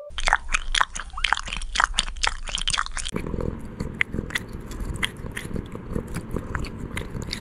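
A cat eating dry treats: many quick, sharp crunches as it bites and chews. About three seconds in the crunching becomes fuller and heavier.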